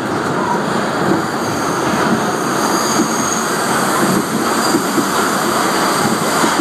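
New York City Subway E train running through a tunnel: a loud, steady rumble of wheels on rails, with a faint high wheel squeal in the middle.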